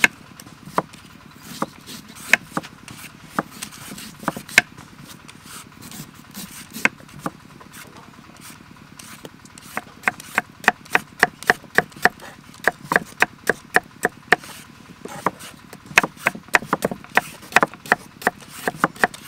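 Kitchen knife cutting green mango on a wooden chopping board. There are scattered knife taps on the board at first, then from about halfway in a quick, even chopping of about three knocks a second, broken once by a short pause.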